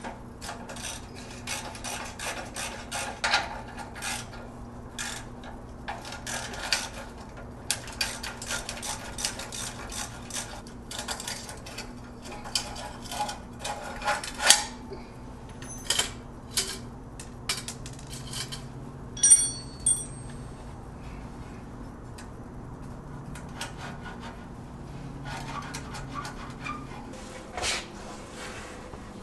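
Metal clinking, scraping and rasping from hand tools working on a car's exhaust system, with rapid clicks and scrapes in the first half and scattered knocks later. One sharp metal clink rings briefly about two-thirds of the way through.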